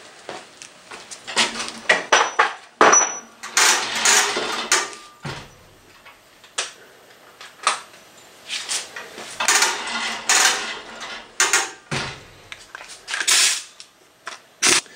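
Metal tools and engine parts clanking and rattling in a series of short bursts and clicks.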